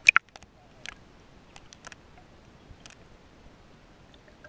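Sharp clicks and knocks from a GoPro in its waterproof housing as it is plunged and handled underwater: two loud ones right at the start, then a few fainter scattered ticks over a low hiss.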